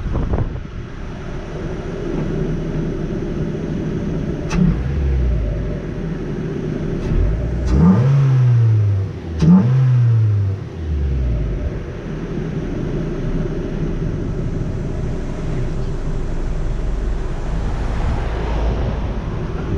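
Mazda MX-5 NB's four-cylinder engine, fitted with a K&N air filter, heard from the bonnet at low road speed. About eight seconds in, the revs rise and fall twice in quick succession.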